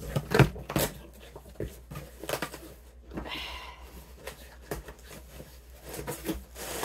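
Cardboard boxes being handled and shifted: a run of knocks, bumps and rustles, the sharpest knock about half a second in.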